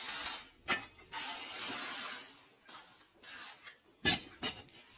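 Hot steel knife blade hissing in spells as it is quenched in a water trough. Near the end come two sharp metallic knocks, the first the loudest sound.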